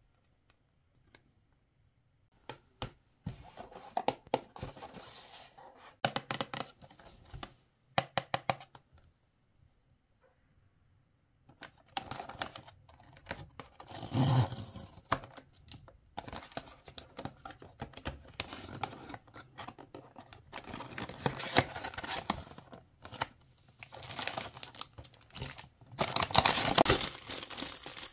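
A small cardboard blind box being torn open and a clear plastic wrapper crinkled and ripped, in scattered bursts with pauses. The loudest tearing comes near the middle and again near the end.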